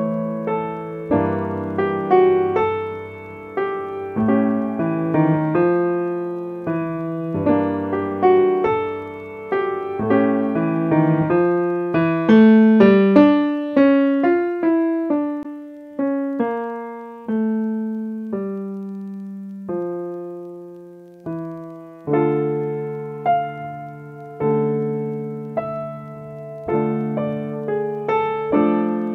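Solo piano music: slow chords and single notes, each struck and left to fade, with a sparser passage of lone notes about two thirds of the way through.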